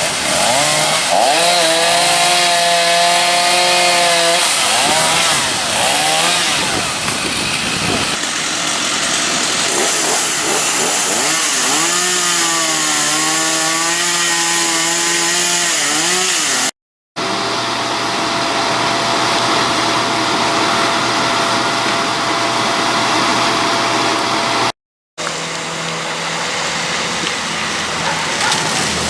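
Gasoline chainsaws running, revving up and falling back as they cut. Later comes a steadier engine drone, and the sound breaks off twice for a moment.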